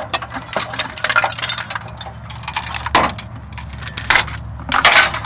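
Irregular metallic clanking and rattling of bent body and engine-bay parts being pried and wrenched loose from a wrecked truck's front end, with a cluster of louder clatters near the end.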